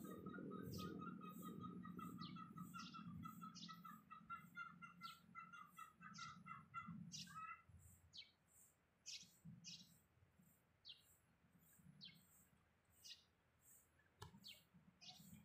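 Faint birdsong. A run of quick repeated notes lasts for about the first seven seconds, over high, thin chirps that repeat about twice a second and then slow to about one a second. A faint low rumble fades out over the first few seconds.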